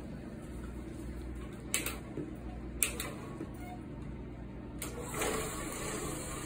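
Orbital floor machine running, scrubbing a vinyl tile floor during stripping: a steady motor hum, with two brief knocks around two and three seconds in.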